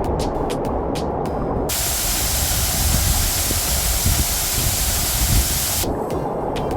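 Background music, broken about two seconds in by the loud, steady rush of a waterfall for about four seconds, which cuts off abruptly as the music returns.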